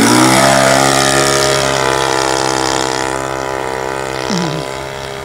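Saito 82 four-stroke glow engine of a Hangar 9 Pawnee RC model plane, swinging a 14x6 propeller, running in flight. Its pitch drops as the plane passes close by at the start, then holds steady as it climbs away, slowly fading.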